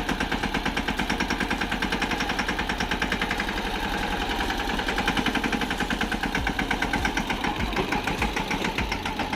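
An engine running steadily with a fast, even chug of about eight beats a second.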